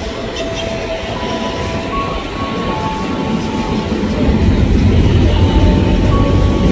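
Former JR East 205-series electric commuter train approaching along the track, its rumble building and growing louder over the last few seconds. A few thin steady tones above it jump in pitch every second or so.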